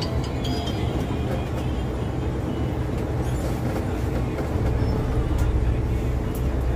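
Volvo B7R coach's diesel engine running with road noise, heard from the driver's cab as a steady low drone with a few light rattles. It grows slightly louder about five seconds in.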